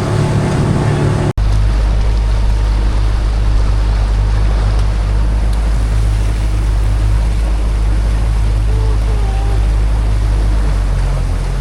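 Speedboat engine running with a steady low rumble, mixed with the rush of water and wind. A sudden cut about a second in breaks it off and it starts again.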